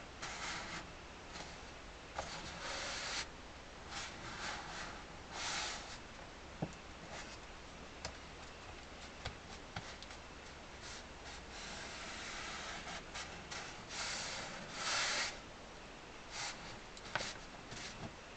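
Hands rubbing and pressing new grille cloth down onto an accordion's aluminium grille while super glue sets: soft, intermittent brushing scrapes of fingers on fabric, with a few faint clicks.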